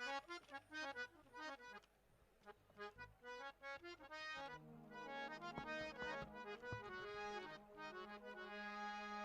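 Harmonium playing a bhajan prelude: quick separate melodic notes at first, then from about halfway, longer held notes over a steady low drone. A few light percussive knocks fall in the middle.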